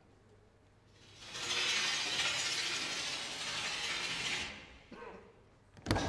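A mechanical ratcheting, clicking sound effect in the dance soundtrack, coming in about a second in and fading out after a few seconds. A sharp hit lands right at the end.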